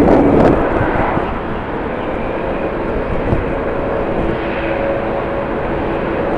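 Jet airliner engines running with steady whining tones over a dense rumble, with wind buffeting the microphone.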